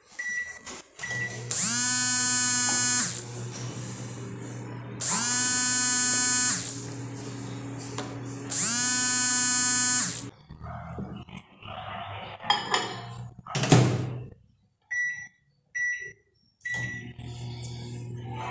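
Microwave oven heating plastisol. Two short keypad beeps, then the oven runs with a steady low hum and a loud harsh buzz that comes on three times for about a second and a half each. The running stops about ten seconds in, followed by a knock and three more short beeps.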